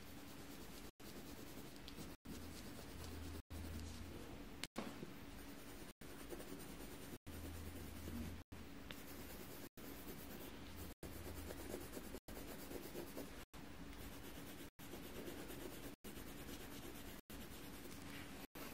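Coloured pencil scratching and rubbing on paper as a drawing is shaded in. The sound drops out for an instant about every second and a quarter.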